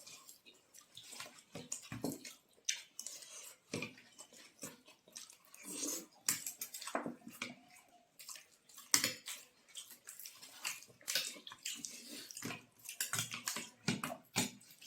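A person eating chole and puri: a dense, irregular run of small wet clicks, smacks and scrapes of food, fingers and plate.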